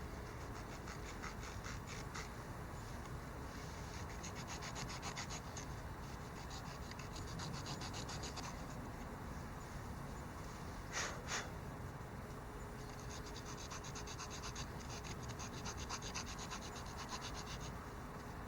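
Small multitool saw blade cutting into a piece of wood, back-and-forth strokes in quick runs, with a pause near the middle and two louder knocks. The cut goes down past a drilled hole to shape a bushcraft whistle.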